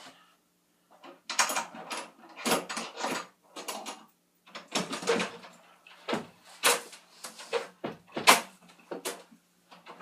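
Rummaging and handling noises: a dense string of knocks, scrapes and rustles as things are moved about and taken out, like a cupboard or drawer being searched.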